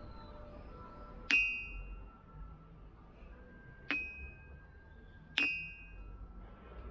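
A small round stone strikes a large ringing wish stone three times. Each hit gives a clear, pretty bell-like ping that fades over about half a second, and the second hit is weaker than the other two.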